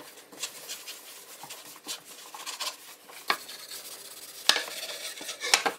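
Cloth rag rubbed back and forth over a cherry wood cutting board, wiping on finish, a steady scratchy swishing. A few sharp taps in the second half stand out above the rubbing.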